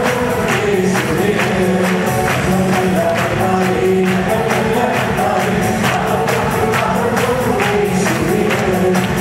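Worship music: a group singing to instrumental accompaniment, with a tambourine keeping a steady beat.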